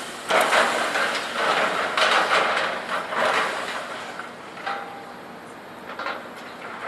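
Scrap metal banging and crashing as a loader works it: a run of clattering crashes through the first four seconds, then a few quieter knocks.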